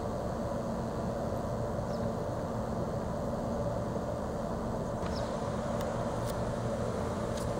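Steady outdoor background rumble at an even level, with a few faint, short high chirps and light clicks scattered through it.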